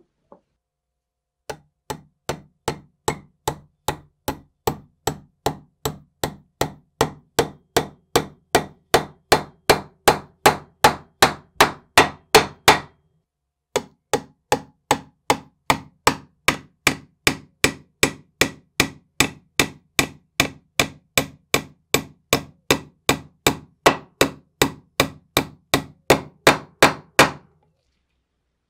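Vintage Raadvad bread slicer's blade chopping in quick, even strokes, about two to three a second, in two long runs that each grow louder toward their end.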